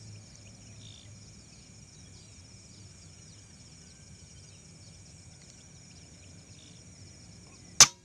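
Steady high-pitched insect chorus, then near the end a single sharp crack from an air rifle shot, the loudest sound; the shot scores a hit.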